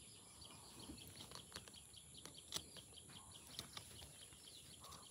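Near silence: faint background with a few soft clicks and faint bird chirps.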